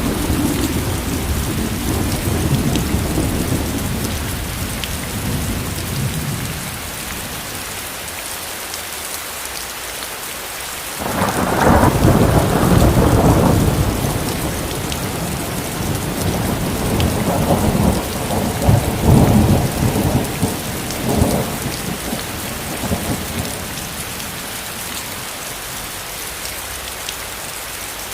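Steady rain with rolling thunder. A low rumble at the start dies away, then a loud peal of thunder breaks about eleven seconds in and rumbles for a few seconds. More rumbles roll through a little later.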